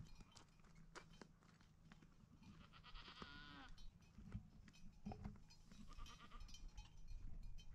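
Faint goat bleating: one bleat about three seconds in and a shorter, fainter one about six seconds in, over scattered light clicks.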